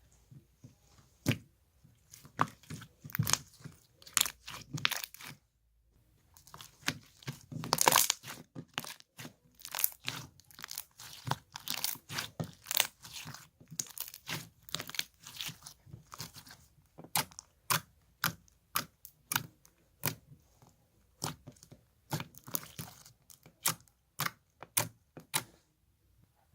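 Slime being squeezed and pressed by hand, making an irregular run of sharp crackling and popping clicks, densest and loudest about a third of the way through.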